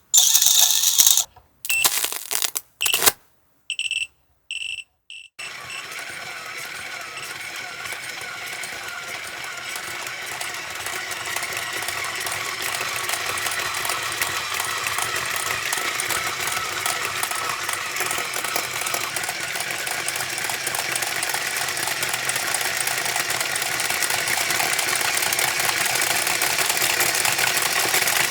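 Toy lizard's small electric motor and plastic gears driven from a DC power supply. After a few short stop-start bursts in the first seconds, it runs continuously with a fast ticking rattle that grows steadily louder as the voltage is raised.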